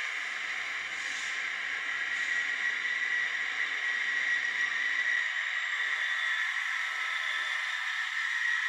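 N gauge model train's DCC sound decoder playing a locomotive running sound through its tiny speaker: a thin, steady hiss with a faint high whine running through it.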